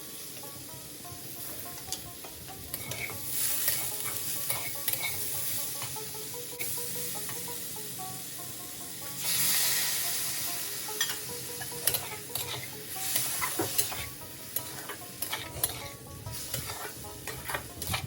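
Food sizzling as it fries in a hot pan and is stirred with a spatula. The sizzle swells louder twice, about three seconds in and again about nine seconds in, and short knocks and scrapes of the spatula against the pan come often in the second half.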